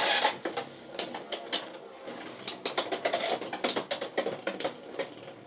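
Two Beyblade X spinning tops battling in a plastic stadium: the attack-type Drawn Dagger clashes with a Night Shield defense combo on a Gear Needle bit. Irregular sharp plastic clacks of collisions ring out over a steady rattling of the spinning tops, and they thin out and get quieter near the end.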